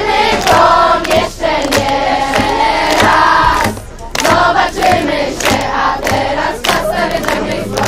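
A group of young scouts singing together in unison, with rhythmic hand claps about twice a second. The singing breaks off briefly about four seconds in, then carries on.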